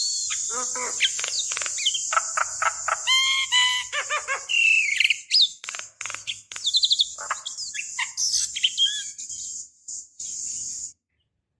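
Javan myna singing: a varied run of clear whistles, rising and falling glides, quick chattering rattles and harsh notes. A steady high-pitched insect drone runs behind it, and both cut off near the end.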